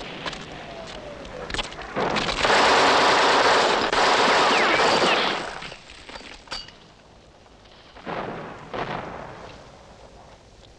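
Automatic gunfire in a war-film soundtrack: a few single shots, then one long, rapid burst of machine-gun fire lasting about three and a half seconds, followed by a lone shot and a couple of further bangs.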